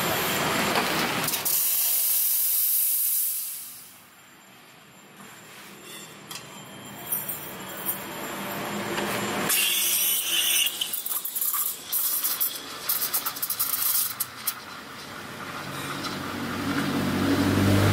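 Espresso machine steam wand hissing as milk is steamed in a stainless steel pitcher: a short loud burst about halfway through, then the hiss builds again near the end, deepening as the wand works in the milk.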